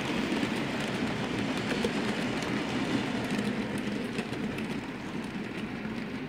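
Model railway train of bogie tank wagons running along the layout's track: a steady rolling rumble with faint clicks from the wheels over the rail joints. It eases off over the last two seconds as the train moves away.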